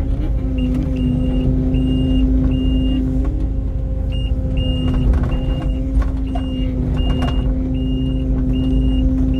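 Heavy diesel engine running steadily at a constant speed, with a backup alarm beeping over it about one and a half times a second, pausing briefly partway through. A few light knocks come in the second half.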